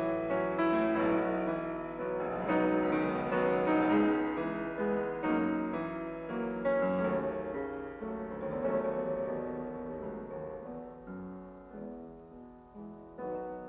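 Piano music playing chords and melody, growing softer in the last few seconds.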